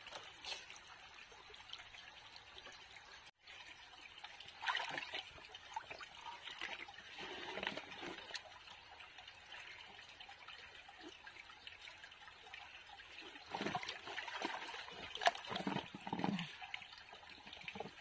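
A hand splashing and groping among stones in shallow stream water while the stream trickles steadily; the splashing comes in irregular patches and is busiest in the last few seconds.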